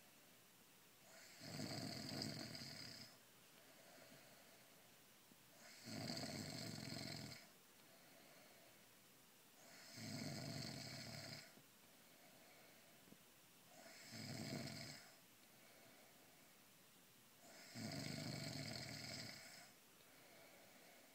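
A pregnant woman snoring in her sleep, a side effect of pregnancy: five rasping snores, each about a second and a half long, coming at an even rhythm of roughly one every four seconds.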